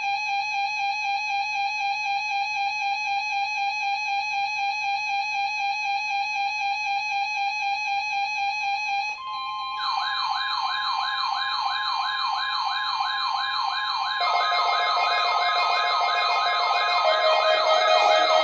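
Weather radio receivers sounding their alert alarms for the required weekly test. A steady alarm tone runs for about nine seconds, then warbling siren-like alarms from several radios join one after another and grow louder.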